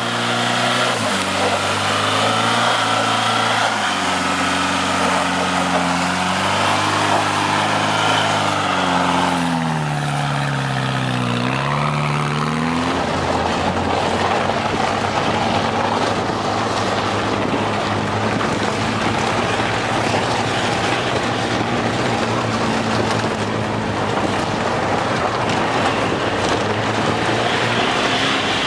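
A 4x4's engine heard from inside the cabin while driving a snowy dirt track. The revs rise and fall through the first dozen seconds and dip sharply about halfway through. It then settles into a steadier run with more rough rumbling noise.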